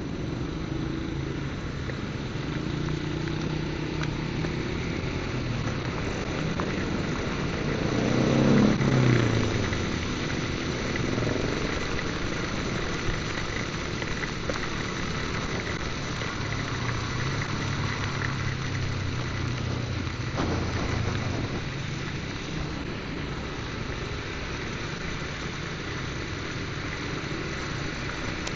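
Motorcycle running on a ride through heavy rain: a steady hiss of rain and wet road noise with the bike's engine underneath. A louder swell with a rising and falling pitch comes about eight or nine seconds in.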